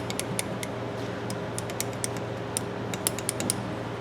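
Light, irregular metallic clicks in clusters from a small pair of needle nose pliers being handled and worked, over a steady low hum.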